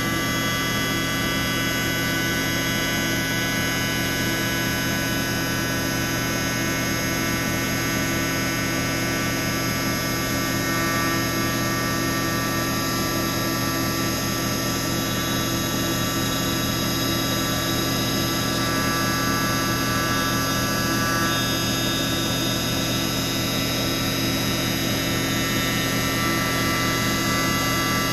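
CNC milling machine running steadily as it machines a metal scooter rim under coolant spray: a constant whine made of many steady tones over a hiss.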